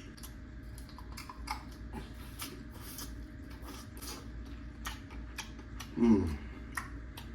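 Close-miked chewing and wet mouth clicks from eating cheesy grilled oysters: a scatter of small smacks and clicks. About six seconds in comes a short, low voiced sound falling in pitch, like an appreciative hum.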